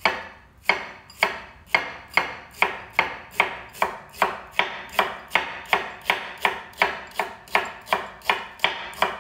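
Kitchen knife slicing an onion into thin strips on a wooden cutting board: even, sharp knocks of the blade on the board, about two a second at first and quickening to nearly three a second.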